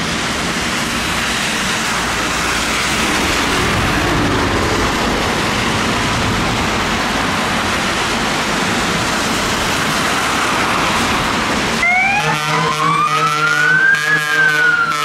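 A steady rushing noise, then near the end a fire engine's siren cuts in abruptly, wailing slowly up in pitch and back down over a steady low tone.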